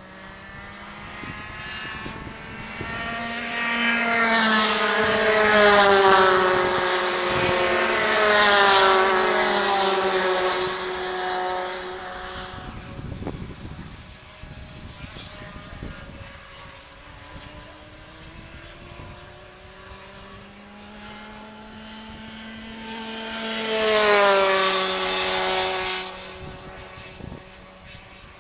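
Racing go-kart engines passing trackside at speed, engine pitch rising and falling as they go by. The loudest pass-by is about four to eleven seconds in, and another kart passes close about twenty-four seconds in, its pitch dropping as it goes past.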